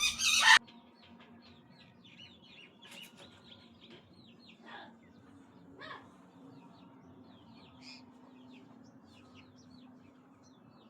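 Green parrot gives one loud, harsh call at the start, followed by many faint, short high chirps and tweets scattered throughout, over a low steady hum.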